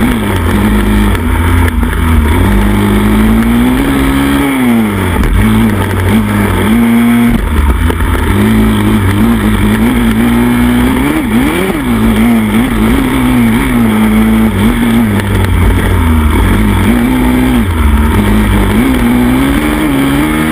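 Pit bike engine at full race pace, picked up close by a handlebar-mounted camera: it revs up and falls off again and again with the throttle and gear changes, its pitch climbing and dropping every second or two.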